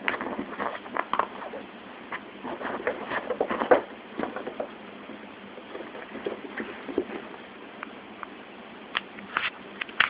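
Kitten scuffling and pouncing on fabric bedding as it plays: irregular rustles, scratches and soft taps, busiest in the first half, with a few sharper clicks near the end.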